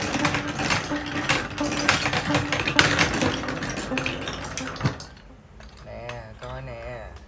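Marbles clattering down a plastic building-block marble run, a dense run of rapid clicks and rattles that stops about five seconds in.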